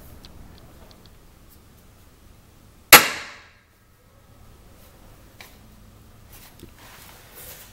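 A single sharp metallic clack with a brief ring as the steel chute block arm on a zero-turn mower's deck snaps against its magnet catch, about three seconds in. A few faint handling clicks follow.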